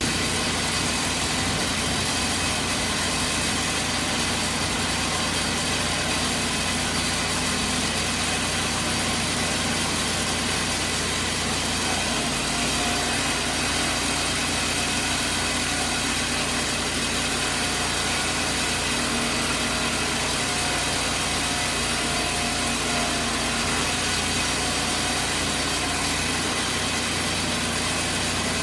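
A board edger running steadily, an engine-driven machine hum with a slight change in its low tone about twelve seconds in.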